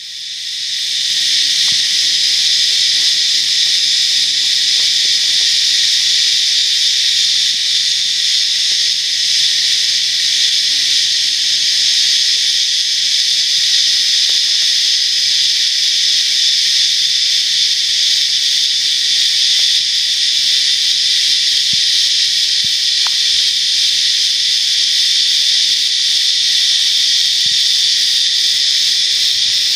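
Cicadas calling in chorus: a loud, steady, high-pitched drone that never lets up.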